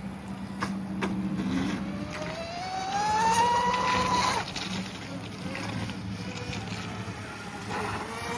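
Cozy RC M700 electric RC race boat on 4S, with a two-blade Octura X642 prop, running on the water. Its motor and prop give a high whine that rises steadily in pitch for a couple of seconds as it speeds up, cuts away a little after the middle, and starts rising again near the end.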